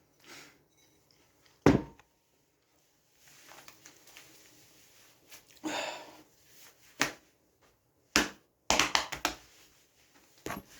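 Dry crackers crunching as they are eaten: a few sharp separate crunches, a longer crackly rasp, then a quick run of crunches near the end.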